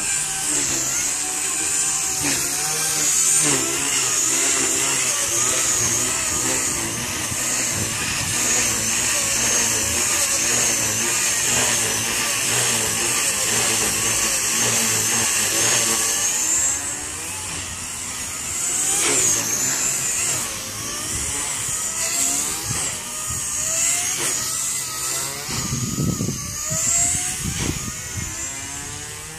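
Blade 130X micro electric RC helicopter in flight: the high-pitched whine of its motors and spinning rotor blades wavers up and down in pitch as throttle and pitch change. A couple of brief low rumbles come near the end.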